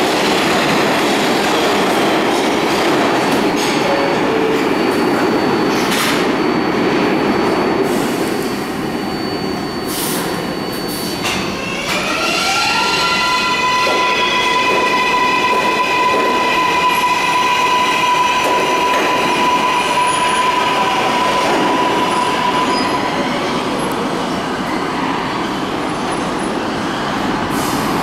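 R142A subway train rumbling in the station, with a few sharp knocks, then pulling out: its electric traction motors whine, rising in pitch about twelve seconds in and levelling into a steady tone, over the rumble and clatter of the cars rolling on the rails.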